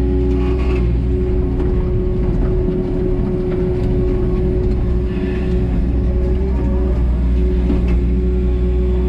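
Takeuchi TB285 mini excavator's diesel engine running steadily under working load as the boom digs and swings, heard from inside the cab.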